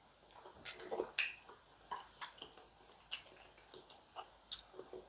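A person chewing food: faint, irregular wet mouth clicks and smacks.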